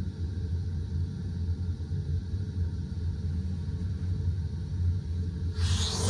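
White noise heard through a clear mass-loaded noise barrier booth, reduced to a steady low rumble with the hiss blocked. Near the end the full bright hiss suddenly comes in.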